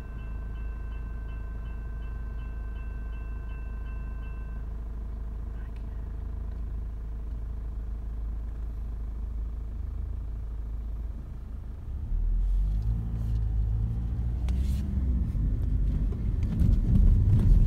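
Level crossing warning bell ringing steadily with a quick ticking beat over a low rumble of road traffic, the bell stopping about four and a half seconds in as the crossing clears. From about twelve seconds in the traffic rumble gets louder and rougher as cars move across the crossing.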